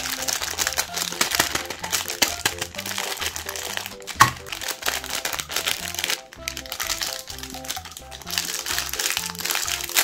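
Plastic-foil ice cream bar wrapper crinkling as it is squeezed and handled, with one sharp crack about four seconds in, and the wrapper being torn open near the end. Background music runs underneath.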